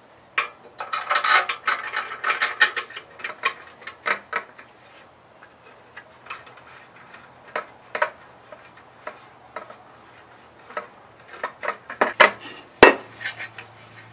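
Small steel parts and tools clinking and clattering as they are handled and set down, in irregular bursts that are busiest at the start and again near the end, over a faint steady low hum.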